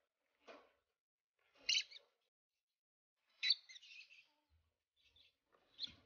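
Rosy-faced lovebirds chirping: a few short, high chirps, the two loudest a little under two seconds and about three and a half seconds in, with fainter ones between and near the end.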